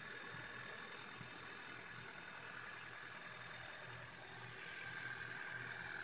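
Volkswagen 2.0 TSI turbocharged direct-injection four-cylinder engine idling fast at about 1200 rpm after a cold start, with a cold-start misfire that is starting to clear up. The misfire is suspected to come from carbon build-up on the intake valves.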